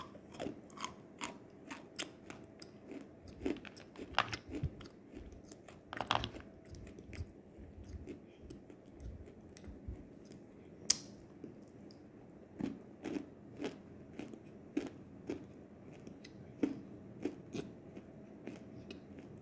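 Biting and chewing a lump of nzu, the dry white edible kaolin clay: an irregular run of sharp crunches, a few of them louder than the rest.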